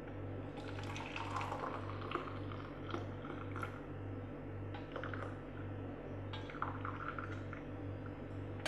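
Faint drips and trickles of chai falling through a mesh tea strainer into a ceramic mug as the last of the tea drains from the leaves, over a low, regularly pulsing hum.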